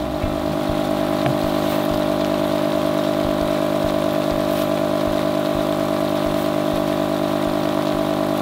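A small motor running steadily, giving an even hum of several tones with a slight regular pulsing, over a hiss of rain.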